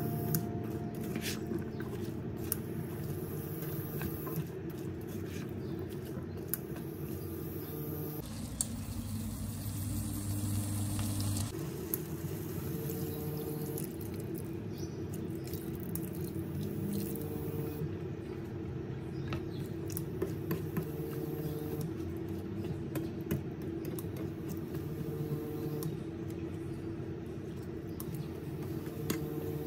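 Plastic spatula stirring diced potato and chicken in a nonstick wok: scattered light clicks and scrapes against the pan. Water is poured in partway through, and the wet mixture squishes as it is stirred. A steady low hum runs underneath.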